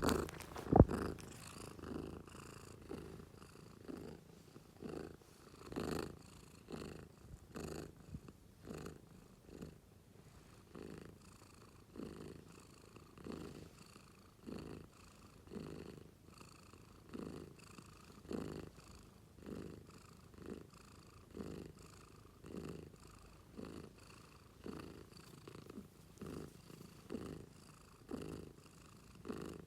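Domestic cat purring, in a steady run of even pulses a little more than once a second.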